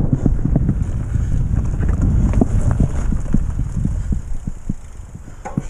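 Mountain bike ridden fast along a dirt forest trail: wind buffeting the action camera's microphone over the tyres' rumble, with frequent small clicks and rattles from the bike over bumps.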